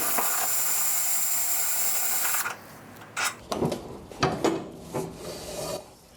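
Power drill with an 8mm hex bit running steadily as it backs out a treadmill rear roller bolt. It stops about two and a half seconds in, followed by several knocks and clunks of metal parts being handled.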